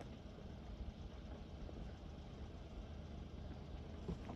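An SUV engine running faintly and steadily at low speed, a low rumble, as an off-road vehicle crawls down a rough dirt track.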